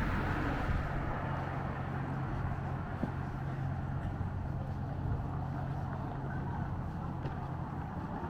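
A large engine running steadily, a continuous low hum under a light wash of background noise.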